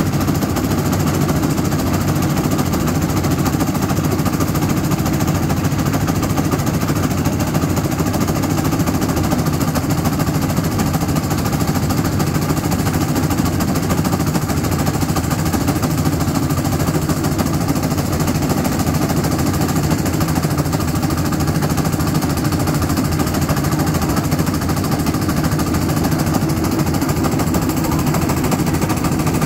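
A motorised railcart's small engine running steadily with a fast, even chugging as the cart rolls along the rails.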